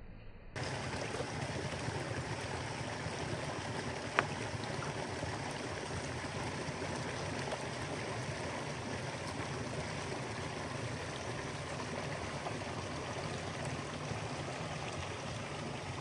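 Flowing water running steadily, with one sharp click about four seconds in.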